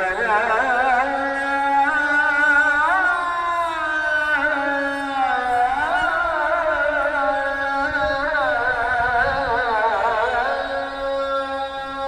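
A single voice chanting a supplication (dua) unaccompanied, in long held notes with wavering, ornamented melismatic turns.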